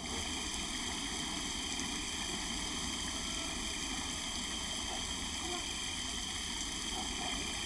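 Steady, even outdoor night ambience: a constant background hiss with no distinct events.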